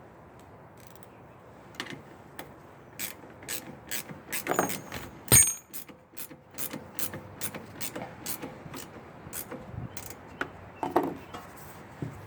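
Metal hand-tool clicks at a steady pace of about two a second, like a ratchet being worked during assembly, with one loud knock about five seconds in.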